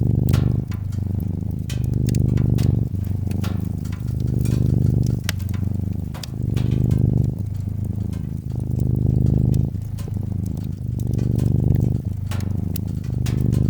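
Cat purring close up, a low rumble that swells and eases with each breath about every two seconds, with a wood fire crackling in small sharp pops throughout.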